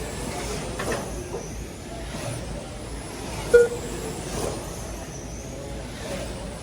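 Electric 1/12-scale RC cars' brushless motors whining as they pass on the track. A short beep from the lap-timing system sounds about three and a half seconds in, in step with the leader's roughly 3.6-second laps.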